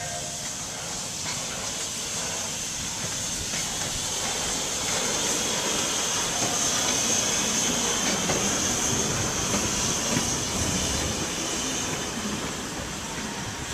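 2 ft gauge steam locomotive 'Victory' passing with its train of carriages, steam hissing over the noise of the rolling wheels. The sound swells to its loudest around the middle and eases off near the end as the train moves away.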